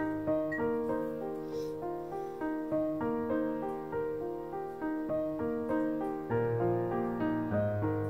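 Gentle solo piano background music: single notes and soft chords struck at an even, unhurried pace, each one fading as the next begins.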